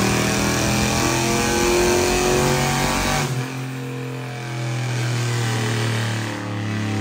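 Turbocharged LS V8 pickup engine running on a chassis dyno. It is loud at first, then eases to a quieter, steadier note about three seconds in.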